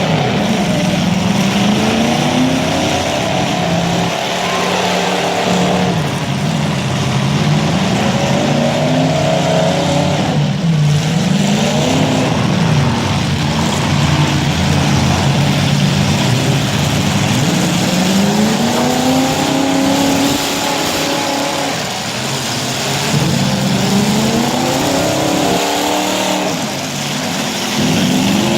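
Demolition derby cars' engines revving, their pitch rising and falling over and over as the cars accelerate and back off, over a constant noisy din.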